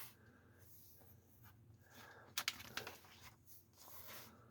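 Comic book pages being handled and turned: faint paper rustling, with a couple of sharper clicks about two and a half seconds in.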